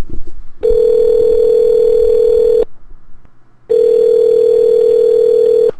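Telephone ringback tone, the ringing heard by the caller while a call rings out: two long steady rings of about two seconds each, a second apart.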